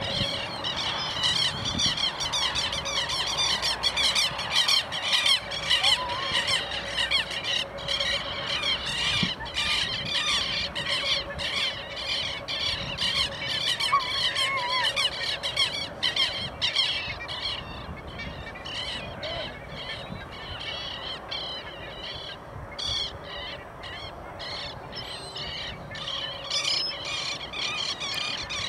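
A flock of birds calling and squawking, a dense, continuous chatter of quick high-pitched calls that thins out somewhat over the last third.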